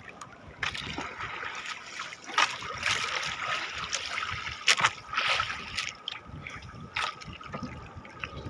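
Water trickling and splashing around a small fishing boat at sea, with a few short, sharper splashes.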